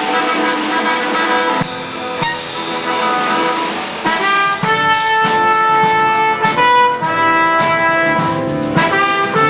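Music led by brass instruments, playing long held notes that change every second or so.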